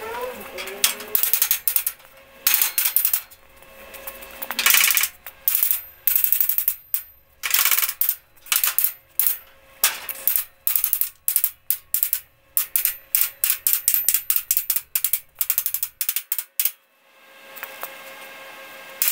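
Arc welder laying a rapid series of short tack welds on the steel plates of a welding table, each a brief crackling burst under a second long, stopping a few seconds before the end.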